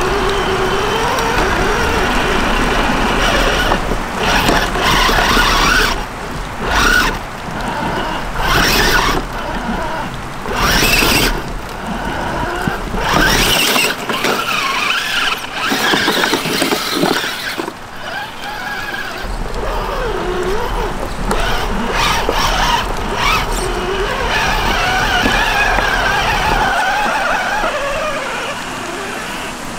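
RC rock crawler's electric motor and gearbox whining, the pitch rising and falling as the throttle is worked, broken up by short noisy bursts.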